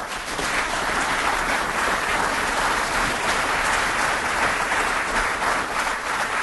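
Audience applauding: a dense, steady patter of many hands clapping that begins to die down near the end.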